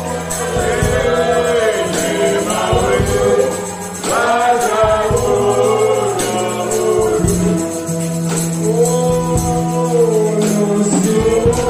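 Gospel worship music: a group of voices singing a melody over held low instrumental notes, with a tambourine shaken and struck through it.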